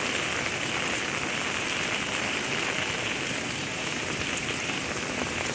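Heavy rain falling in a steady, dense hiss.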